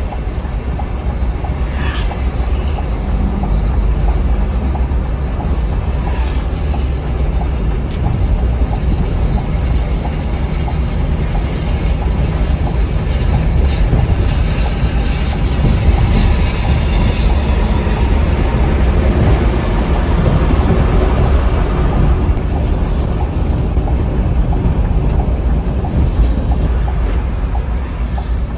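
Scania K360iB coach running at speed: a steady, continuous low drone of engine and road noise.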